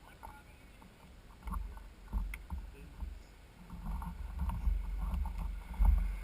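Mountain bike riding over rough trail: scattered rattles and knocks from the bike, over a low rumble of wind on the microphone that swells and peaks shortly before the end.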